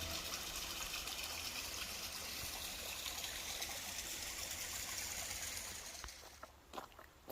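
A stream running, a steady rush of water that fades away about six seconds in.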